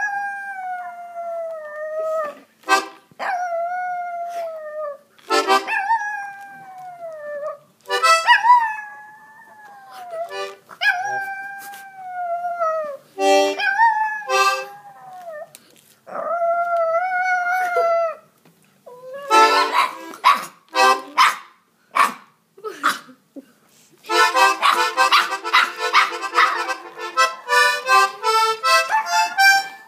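A small tan dog howling, a string of long drawn-out howls a few seconds each that slide down in pitch. In the last third the sound turns into a louder, busier stretch of rapidly wavering, chord-like tones.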